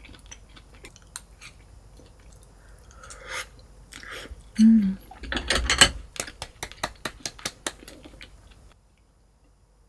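Close-up eating sounds: chewing tofu, with small sharp clicks, and a sip from a wooden bowl about three to four seconds in. A short hummed "mm" comes just before five seconds. Then comes a quick run of sharp clicks, about three a second, that stops abruptly near the end.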